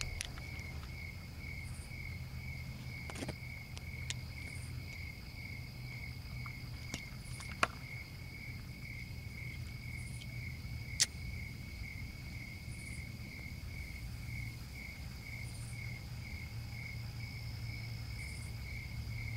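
Crickets chirping at night in a steady pulsing rhythm, about two chirps a second, with a continuous higher insect trill behind them. A few faint sharp clicks.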